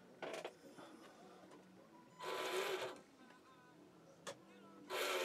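Small electric motor of an RC truck whirring in two short bursts, about two seconds in and again near the end, as the throttle is blipped. A couple of faint ticks come between them.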